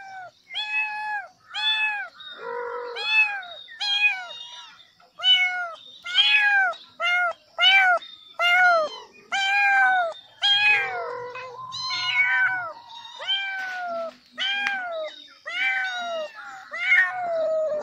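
Kitten meowing over and over, high-pitched calls about one a second, each rising and then falling in pitch.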